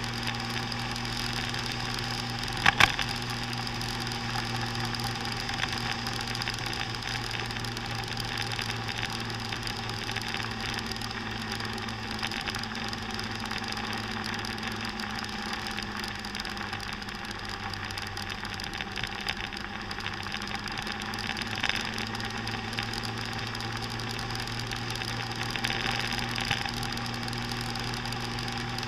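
Motor scooter engine running steadily at cruising speed, its note easing slightly in the middle and picking up again. A sharp double knock about three seconds in stands out above it.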